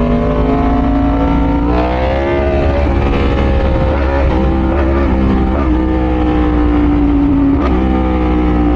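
Yamaha R1's crossplane inline-four engine running at cruising speed under a riding load, with a steady note that rises in pitch briefly about two seconds in and again near the end. Steady low wind rush on the helmet microphone runs underneath.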